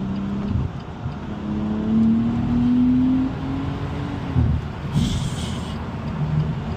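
Tuned BMW M240i's turbocharged B58 inline-six accelerating hard through a Valvetronic valved exhaust, its pitch climbing steadily and then dropping at a gear shift. A brief hiss follows the shift.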